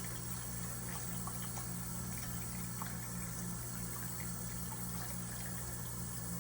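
Tap water running steadily, with a low steady hum underneath.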